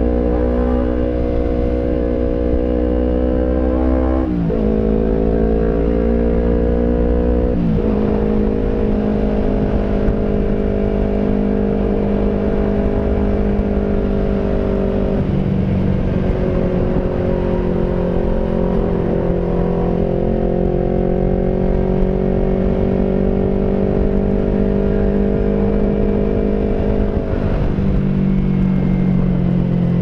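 Yamaha R25's 250 cc parallel-twin engine running through an aftermarket 3Tech Racing Evolution exhaust while riding, at fairly steady revs. Its pitch shifts abruptly a few times as revs change.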